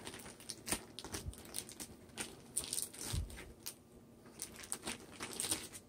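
Faint, irregular clicks and crackles of vegetables frying in bacon grease, with a utensil scraping leftover caramelized onion into the pan and a soft low knock about three seconds in.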